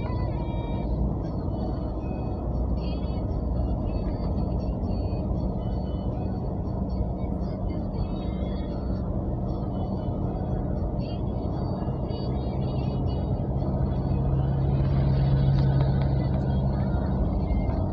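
Road and engine noise inside a moving car's cabin: a steady low rumble, with a low engine hum that grows louder near the end.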